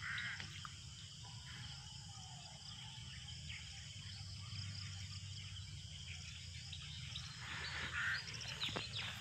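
Faint steady chirring of insects in the grass, with rustling of grass and brush near the end as someone moves through it.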